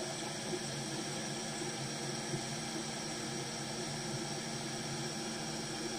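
Steady, even hiss with a faint low hum underneath, unchanging throughout, with no distinct clicks or knocks.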